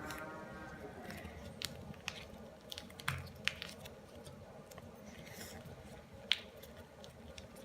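Square origami paper crinkling and creasing under the fingers as it is folded, with scattered light crackles and taps and a sharper click about six seconds in.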